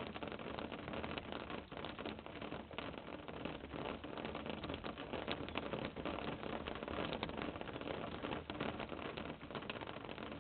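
Muscovy ducklings shuffling and pecking in wood-shavings bedding: a steady hiss with many small clicks and rustles throughout.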